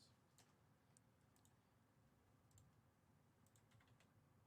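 Near silence, broken by a few faint, scattered clicks from a computer keyboard and mouse.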